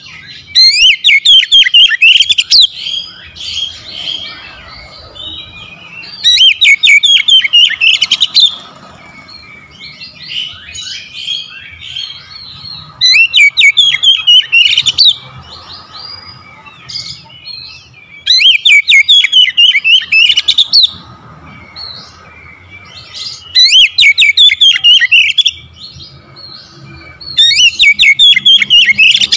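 Oriental magpie-robin singing: six loud phrases of rapid, falling high notes, each about two seconds long and coming roughly every five seconds, with softer chirps and twitters in between.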